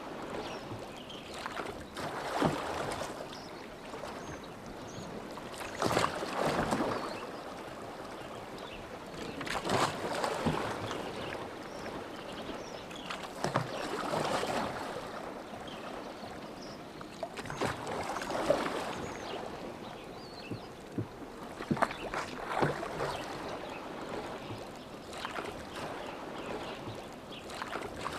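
Oars of a rowboat dipping and pulling through lake water, a splashing stroke about every four seconds with small knocks at each stroke and quieter lapping water between strokes.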